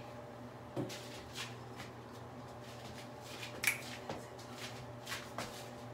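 Scattered short rustles and brushing sounds of hands running through and flipping long straight hair, the loudest about two-thirds of the way in, over a steady low hum.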